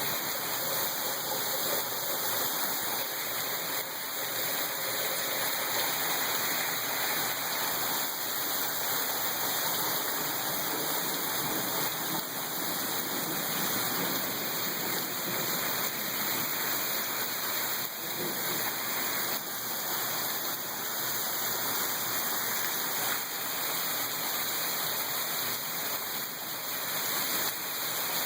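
Heavy rain falling steadily, a dense even hiss of rain with water running.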